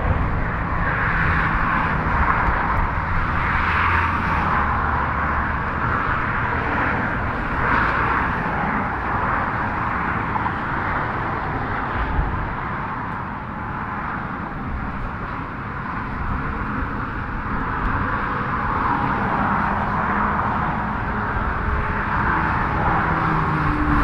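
Steady highway traffic crossing the bridge: tyre noise from passing cars and trucks that rises and falls as vehicles go by, easing about midway and building again toward the end.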